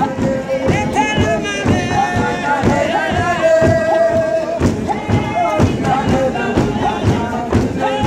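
Worship music: voices singing over a steady percussive beat.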